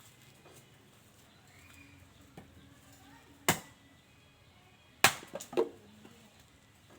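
A few sharp knocks: a faint one, then a loud one about a second later, then another loud one about a second and a half after that, followed closely by a smaller one.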